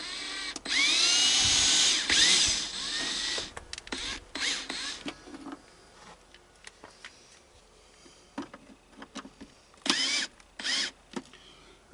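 Power drill spinning nuts off the bolts of a body cover. It runs in short bursts, its motor whine rising as it spins up: a long burst of about three seconds near the start, a shorter one around four seconds in and two brief ones near the end. Light clicks and clinks come between the bursts.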